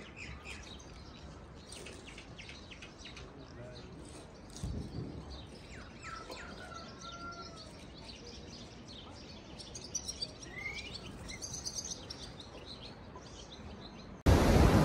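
Small birds chirping in short gliding calls over a faint outdoor background, with a single low bump about five seconds in. Near the end the sound cuts abruptly to a loud, steady rushing noise.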